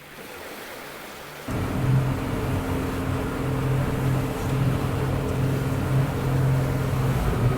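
Boat engine running steadily with a low hum, cutting in abruptly about one and a half seconds in.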